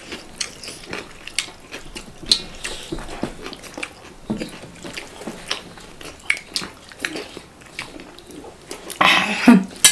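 Close-up eating sounds of chicken curry being bitten and chewed, with many small smacks and clicks. A short burst of voice comes about nine seconds in.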